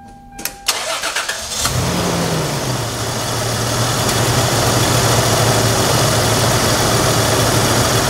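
1997 Toyota Tacoma's 3.4-litre V6 cranked by the starter, catching just under two seconds in with a brief rev-up, then settling into a steady, even idle, a purr. It now runs smoothly on all cylinders: the cylinder-4 misfire (P0304) was cured by replacing a failing aftermarket spark plug wire with an original Toyota one.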